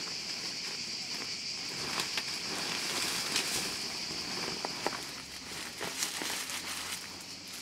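Dry leaves, almond husks and a woven plastic tarp rustling and crinkling as fallen almonds are gathered by hand, with a few sharp clicks. A steady high-pitched insect drone runs underneath.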